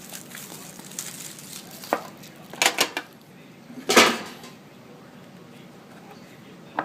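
Metal hockey card tin being handled and opened: light rustling with a few sharp clicks and knocks, a quick cluster of them and the loudest knock about four seconds in.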